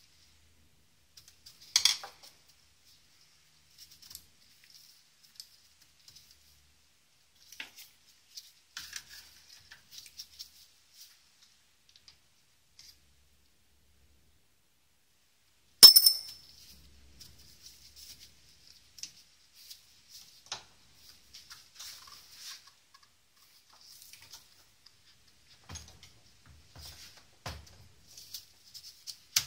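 Small metal clicks, ticks and scrapes of hand tools and chuck parts being worked on a Hilti TE12 hammer drill, with a sharp metallic click about two seconds in and a louder one about sixteen seconds in. A few dull knocks near the end.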